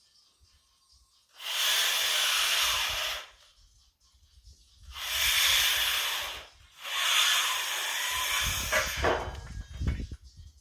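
Gas torch burning with a hiss in three bursts of about two seconds each, the flame opened up and shut off each time.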